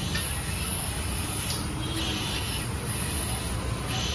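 Gas hissing from the valve fitting of a small 3-litre LPG cylinder as it is being refilled. The hiss swells and eases about every two seconds over a steady low rumble.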